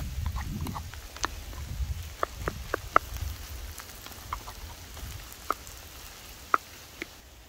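Wooden spatula stirring food in a small metal frying pan over campfire coals: scattered short knocks and taps against the pan, with a quick run of four about two seconds in, over a low wind rumble on the microphone.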